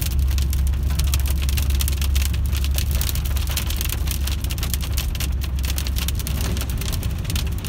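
Dense ticking of rain and hail drops on the windshield and roof of a moving car, over a steady low rumble of road and engine noise in the cabin.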